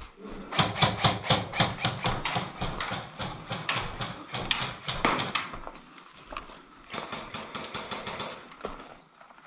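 Quick footsteps of a running player, about four steps a second with rattling gear. They ease off and thin out after about six seconds.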